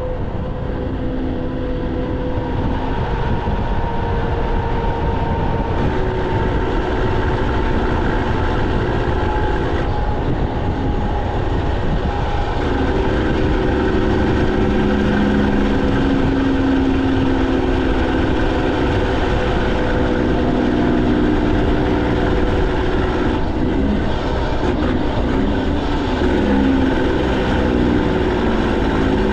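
Semi truck's PACCAR MX13 diesel, fully deleted and straight-piped, running loud and steady under way, its engine note changing pitch a few times as the revs change.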